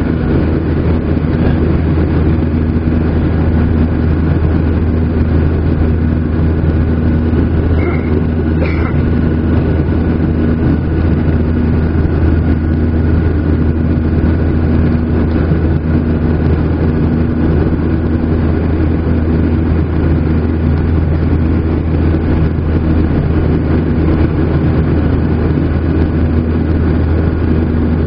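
Steady drone of a Boeing 737-800's CFM56 jet engines and airflow, heard inside the cabin in flight. There are two short higher tones about eight seconds in.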